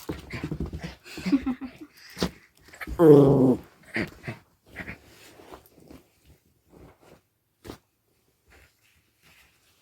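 Pet dog growling and making a few vocal sounds, louder near the start with one loud call falling in pitch about three seconds in, then soft knocks and scuffles.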